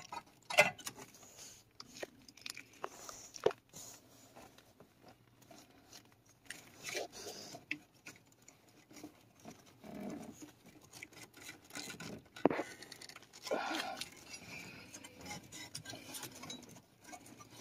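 Hands working wiring harness connectors under a car's steering column: scattered light clicks and rustling of wires and plastic, with one sharper click about twelve seconds in.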